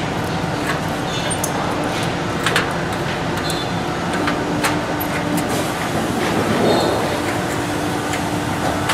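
Light metallic clicks and taps, scattered about once a second, as Cleco fasteners are set with Cleco pliers into aluminium wing ribs and spar, over a steady workshop hum.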